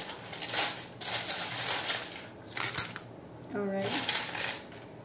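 Small charms and letter tiles rattling in repeated bursts as they are shaken and cast onto a spread of oracle cards, with one sharp click a little before the middle.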